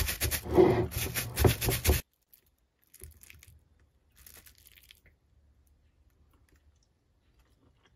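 Plastic packaging crinkling and tearing for about two seconds, cut off abruptly, followed by a few faint rustles and then near silence.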